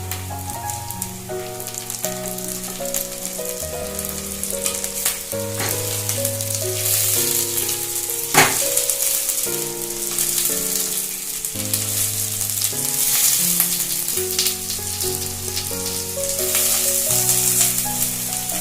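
Capsicum pieces sizzling in hot oil in a kadai with fried onions, a steady crackling hiss. A single sharp knock about eight seconds in. Background music of slow held notes plays underneath.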